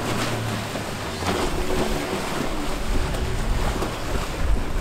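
A rigid inflatable dive boat's engine running as it crosses open sea, mixed with waves sloshing and wind buffeting the microphone.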